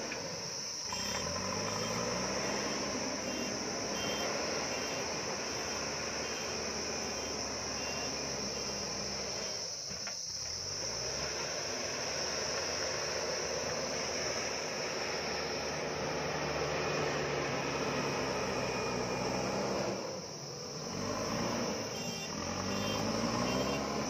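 JCB backhoe loader's diesel engine working under load, its revs rising and falling as it pushes and moves soil. A steady high chirring of insects runs throughout.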